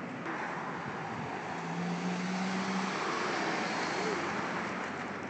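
A car passing along the street, its tyre and engine noise swelling to a peak in the middle and easing off again.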